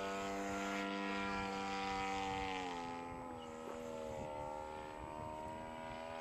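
Gasoline engine of a quarter-scale RC Sopwith Pup model biplane running in flight overhead, a steady drone whose pitch drops about two and a half seconds in.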